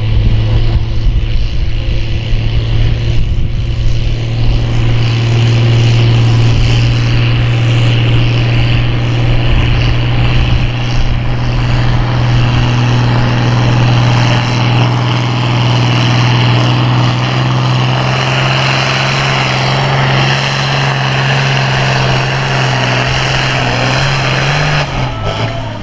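Turbocharged International Harvester diesel farm tractor pulling a weighted sled at full load, its engine giving a loud, steady drone. The note shifts near the end.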